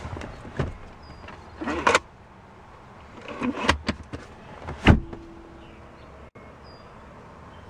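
Clunks and rustling from handling the folding rear-seat centre armrest of a Mercedes-Benz E63. The sharpest knock comes about five seconds in and is followed by a short steady hum.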